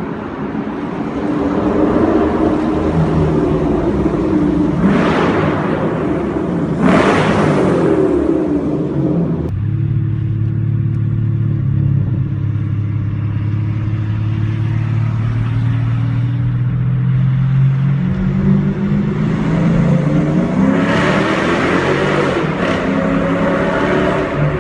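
Mercedes CLK500's V8 running through a straight-piped, decatted exhaust, revving and accelerating. Two brief loud surges come around five and seven seconds in; the note then drops suddenly to a lower steady tone and climbs in pitch again over the last several seconds.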